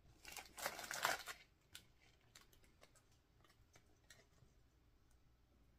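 Faint rustle of loose pipe tobacco being handled and sprinkled into a corncob pipe's bowl: one brief rustle near the start, then a few scattered light clicks.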